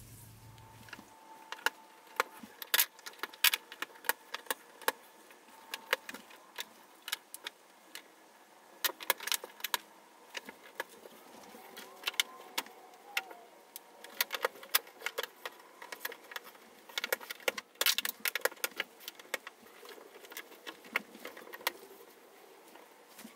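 Plastic track sections of a Lionel John Deere battery-powered toy train set clicking and clattering as they are snapped together and set down on a tabletop: a run of irregular sharp plastic clicks.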